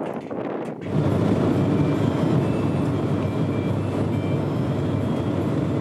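Skógafoss waterfall roaring: a steady, heavy rush of falling water that jumps louder about a second in and then holds.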